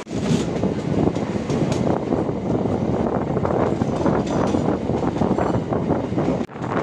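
MEMU electric multiple-unit train running: a steady, loud rumble of wheels on the rails with scattered clatter, which cuts out briefly near the end.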